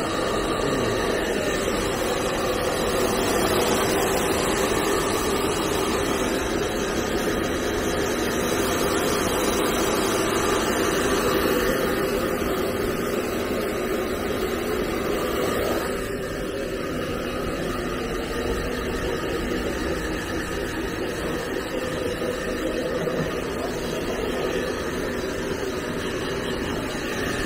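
Handheld hair dryer running steadily, blowing hot air close over a wet dog's coat. The sound drops a little a bit past halfway.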